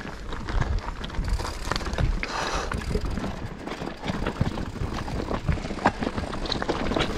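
Mountain bike ridden over a rough, stony trail: tyres rolling on rock and gravel, with frequent knocks and rattles from the bike and a short noisier stretch about two and a half seconds in.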